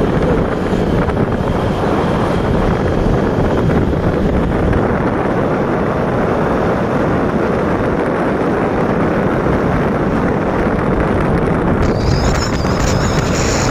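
Steady wind rush on the microphone mixed with road and engine noise from a vehicle travelling at speed. About twelve seconds in, a faint high whistle joins in.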